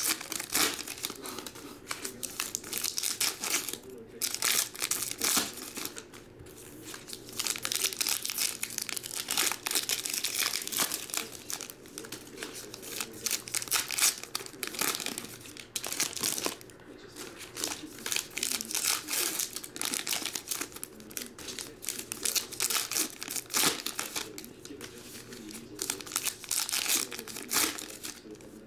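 Foil trading-card pack wrappers being torn open and crinkled in the hands, an irregular crackling and rustling with a few short pauses.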